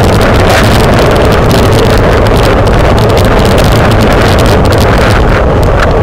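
Loud, steady wind rush buffeting the microphone of a camera mounted on a racing bicycle at speed, with frequent irregular clicks and rattles over the concrete.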